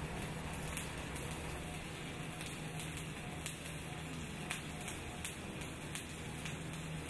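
Electric arc welding: the arc's steady crackling sizzle, fairly quiet, with irregular sharp pops and a low steady hum underneath.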